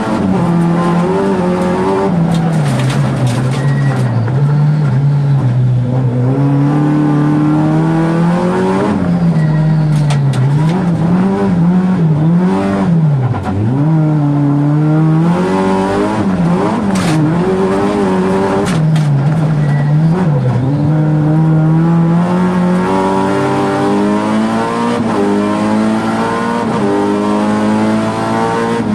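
Rallycross car's engine heard from inside its stripped, roll-caged cabin under racing load, its pitch rising and dropping again and again through gear changes and corners, with several steady climbs through the gears near the end.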